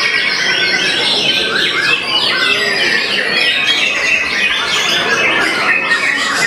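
White-rumped shama singing a fast, unbroken run of varied whistles, trills and chattering phrases, the kind of mixed mimicry (isian) that contest murai batu are judged on.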